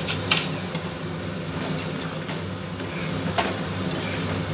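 Steel spatula stirring thick dal in a black kadai, with a few sharp scrapes and knocks against the pan, over a steady low hum.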